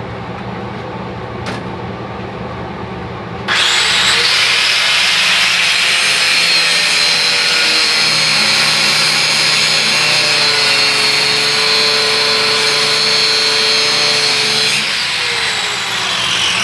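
Angle grinder switched on about three and a half seconds in, grinding slag off a steel workpiece with a steady high whine, then winding down with a falling whine near the end. Before it starts there is only a steady background hum.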